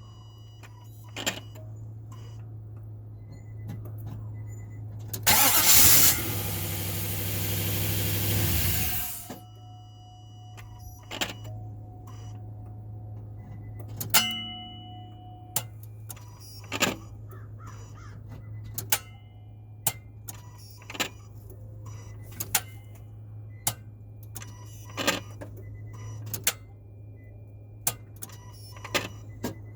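A 2005 Nissan Titan's engine: a loud spell of engine noise lasting about four seconds, about five seconds in, with a steady low hum throughout. Scattered sharp clicks follow later, one or two a second.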